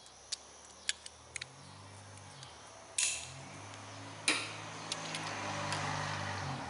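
Light metallic clicks and clinks of pliers and fingers handling a small metal carburetor part: a few soft ticks in the first second and a half, then two sharper clinks about three and four seconds in. A low hum that shifts in pitch runs underneath.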